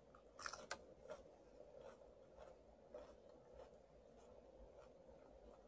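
Faint crunching of crisp raw leafy greens being bitten and chewed. A louder crunch of the bite comes about half a second in, followed by soft chewing crunches roughly twice a second.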